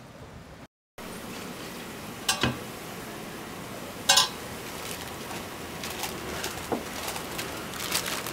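Metal kitchenware clanking over a steady hiss: a double clink about two seconds in, a loud ringing metal clang about four seconds in, then lighter clinks.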